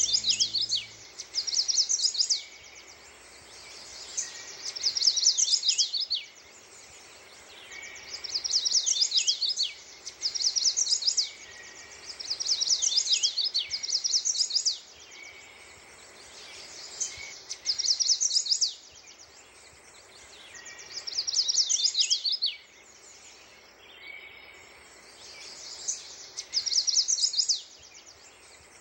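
A songbird singing rapid, high-pitched chattering phrases, each a second or so long, repeated every couple of seconds and often in pairs.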